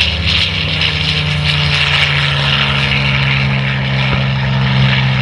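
Piston-engine propeller aircraft running steadily at close range, its engine note dropping slightly in pitch, with propeller hiss over it.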